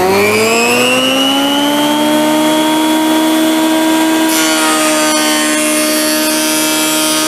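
Benchtop jointer running: the motor whine climbs in pitch at the start as it comes up to speed after being switched on, then holds steady. From about four seconds in, an oak board is fed across the cutterhead and a loud hissing cut rides over the whine.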